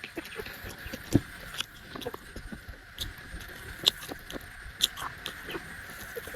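Close-miked chewing of buffalo meat curry, with irregular wet clicks and smacks of the mouth.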